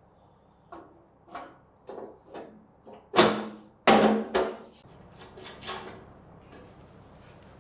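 A run of knocks and clanks of hard parts being handled and set in place. They build up to the two loudest, about three and four seconds in, which ring briefly, then lighter knocks follow.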